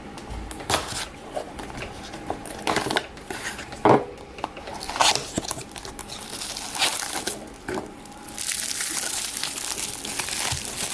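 Plastic packaging being handled and opened: scattered crinkles and small clicks, then a longer stretch of steady crinkling over the last two or three seconds.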